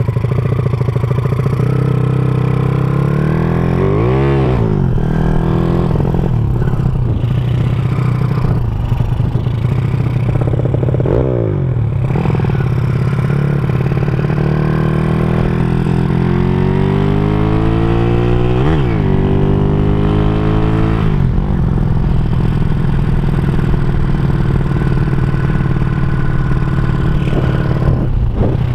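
Honda Supra motorcycle's single-cylinder four-stroke engine, bored out to 200cc, running through a CJDW aftermarket exhaust while being ridden: a steady loud exhaust note whose pitch rises and falls several times with the throttle, with a longer climb about two-thirds of the way through.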